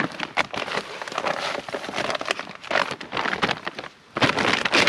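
Birch bark crackling and rustling in quick, irregular snaps as it is fed to a fire being lit. A little before the end a steady hiss starts abruptly.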